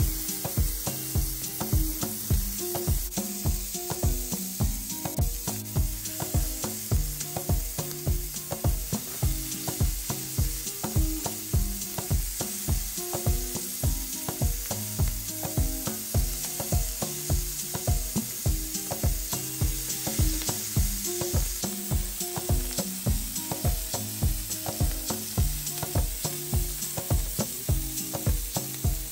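Food sizzling in a hot pan, a steady hiss, under background music with a steady beat of about two pulses a second.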